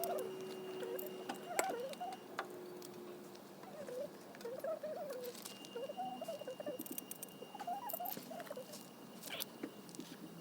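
Wood fire in a small stove crackling with scattered sharp pops, and faint wavering whistle-like tones over it.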